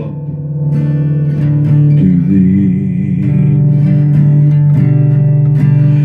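Acoustic guitar strummed in a steady chord pattern, with no singing.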